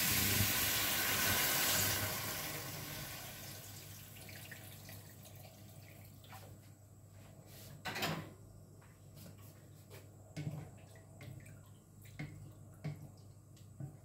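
Water poured from a pitcher into a hot wok of browned chicken, splashing and sizzling, the sizzle fading away over the first few seconds as the pan cools. Then a few scattered knocks and clicks in the kitchen, the loudest one about eight seconds in.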